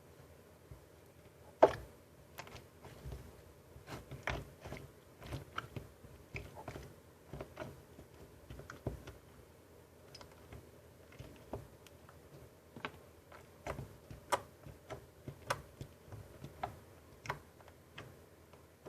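Slime being squeezed and poked by hand, giving irregular sticky clicks and pops, one sharper pop about a second and a half in.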